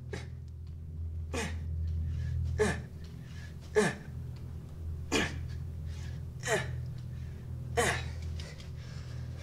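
A man's hard, voiced breaths during push-ups: a sharp exhale that drops in pitch with each rep, about one every 1.3 seconds, six times. A steady low hum runs underneath.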